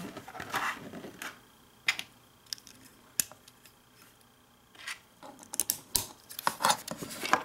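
LEGO plastic bricks and plates clicking as they are handled and pressed together: scattered sharp clicks, with a quiet stretch of about a second around the middle.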